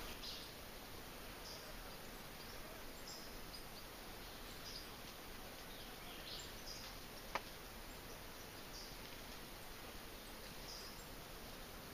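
Faint forest ambience: a steady hiss with scattered short, high chirps. One sharp click comes about seven seconds in.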